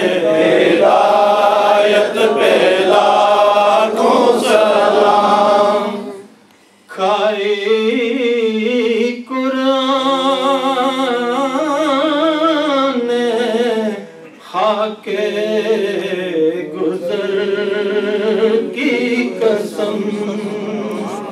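Men chanting unaccompanied Urdu devotional verses into a microphone: a lead voice with long, wavering melodic lines, with a lower voice holding a steady note under it in places. The singing breaks off briefly about six seconds in.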